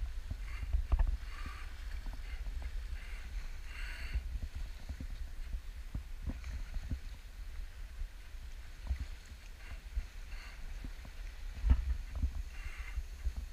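Wind buffeting the microphone on a small sailboat under sail, with water rushing and splashing along the hull and scattered knocks from the boat. A few louder gusts, the strongest about twelve seconds in.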